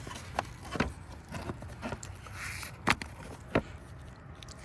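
A series of sharp clicks and knocks from handling the plastic fuse box and its cover, the loudest about three seconds in and another about half a second later.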